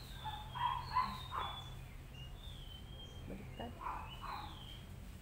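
Birds chirping in short whistled calls, with a dog barking a few times about a second in and again near four seconds, over a steady low hum.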